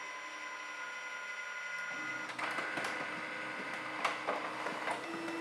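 Canon MF113w laser multifunction printer running a copy job: a steady motor whir with several thin high tones. About two seconds in, a lower hum and a few sharp clicks join it as the sheet is fed through. Relatively quiet.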